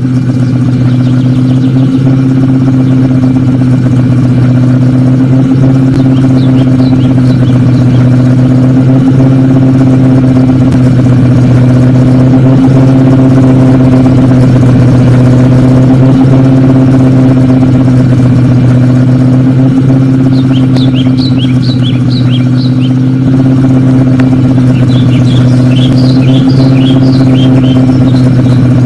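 Car engine running at a steady speed, a constant unchanging drone with no revving.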